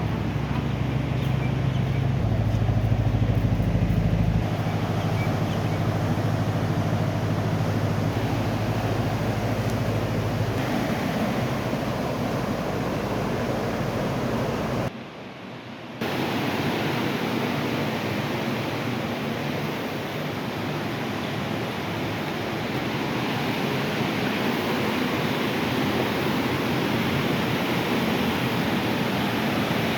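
Steady rushing of floodwater from a swollen river. For the first ten seconds or so a vehicle engine hums low underneath it. The sound cuts out for about a second halfway through, then the rushing water goes on.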